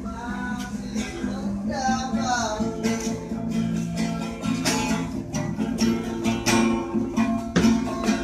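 Music led by a strummed acoustic guitar, with steady repeated strums.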